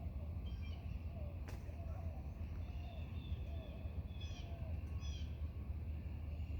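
Bluebirds giving short, high alarm chirps at a cat in their tree, a few scattered notes near the start and two quick runs of falling chirps past the middle, over a steady low rumble.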